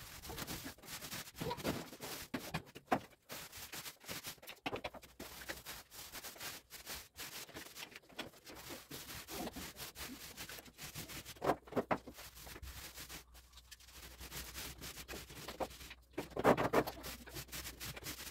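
Paint roller on an extension pole rolling paint onto a plaster wall: a wet rubbing in repeated strokes, with a louder sound near the end.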